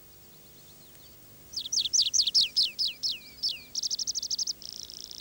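Tree pipit singing: about a second and a half in, a run of loud, falling whistled notes, then a fast, even trill, then a buzzier trill that runs on.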